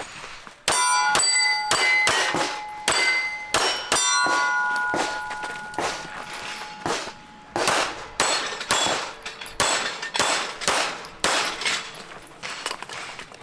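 Pistol shots fired in quick strings, many followed by steel target plates ringing as they are hit.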